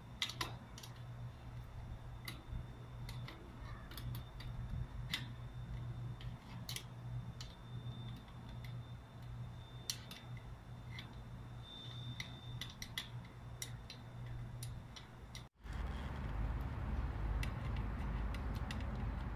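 Irregular light metallic clicks and clinks of a small wrench turning a bolt on a trampoline's steel frame, over a steady low hum. Near the end the sound cuts out for an instant and the background noise comes back louder.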